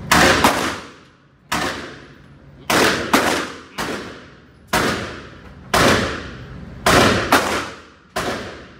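300 Blackout AR-style rifle firing single shots at a steady pace, about eleven in nine seconds, a few of them in quick pairs. Each crack rings off in the echo of an indoor range.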